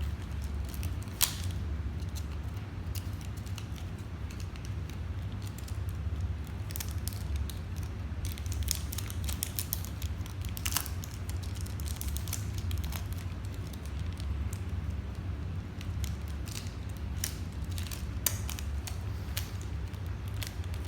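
Paper being handled and folded for origami: scattered crackles and sharp clicks, one louder click about a second in, over a steady low hum.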